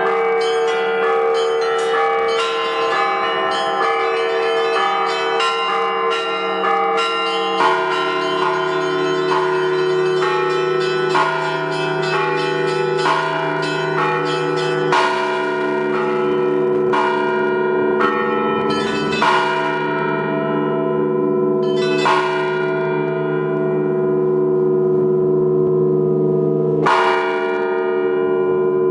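Russian-style bell ringing (zvon) on a zvonnitsa of many bells: fast strikes on the small bells over the sustained ringing of larger bells. About halfway through the quick pattern stops, leaving a handful of single heavy strokes one to five seconds apart, each ringing on.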